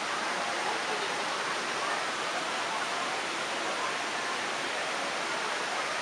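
Steady rush of flowing water, an even hiss that does not change, with faint voices underneath.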